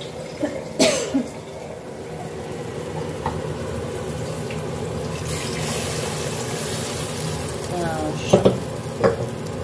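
A metal pot lid clanks down onto a cooking pot about a second in, then a steady hiss of kitchen noise builds slowly, with a couple of sharp knocks and a brief voice near the end.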